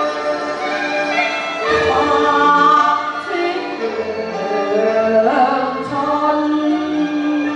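Cantonese opera song music: a slow melodic passage of held notes that slide between pitches.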